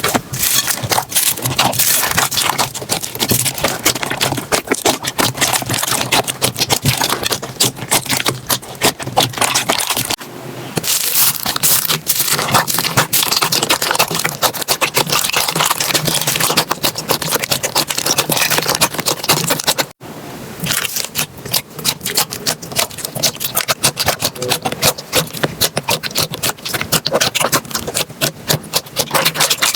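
Slime being squished and pressed by hand, giving a dense, rapid run of small crackling and popping clicks. The texture changes at cuts about ten and twenty seconds in.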